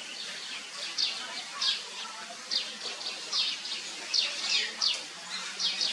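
Birds chirping: short, high chirps that fall quickly in pitch, coming one to three a second at an irregular pace.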